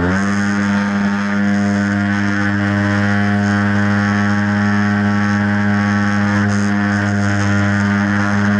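Radio-controlled model airplane's motor and propeller running at steady high throttle, heard from a camera riding on the plane. The pitch finishes rising at the very start, then holds level.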